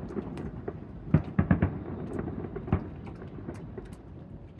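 Fireworks exploding: deep booms with a rolling rumble, four in quick succession a little over a second in and one more just before three seconds, then the rumble dies away.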